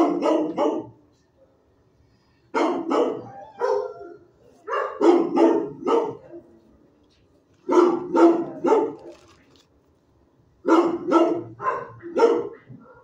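A dog barking in five bursts of three or four quick barks each, with pauses of about a second or two between the bursts.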